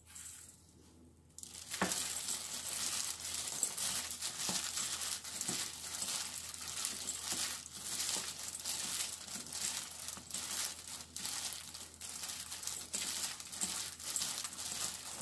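Disposable plastic glove crinkling and rustling as a gloved hand tosses and squeezes steamed shishito peppers with seasoning in a stainless steel bowl, full of small quick crackles. It opens with a softer hiss of granular seasoning being poured in, and the crinkly mixing starts about a second and a half in.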